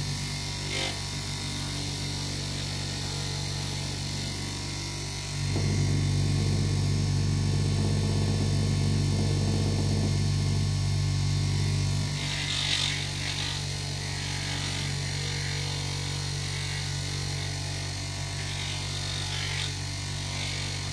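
Small bench grinder fitted with a stone-polishing pad, its electric motor running with a steady hum that gets louder for several seconds in the middle.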